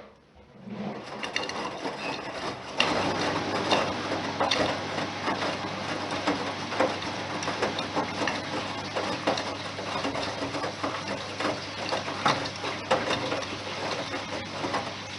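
Bosch WAQ 28477EX Serie 6 front-loading washing machine with its drum turning, the wet laundry tumbling with many small clicks and rustles. The drum motor's steady low hum joins about three seconds in.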